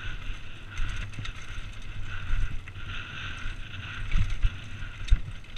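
Downhill mountain bike rattling and knocking over a rocky dirt trail, with wind rumble on the microphone. A few sharper knocks come about four and five seconds in.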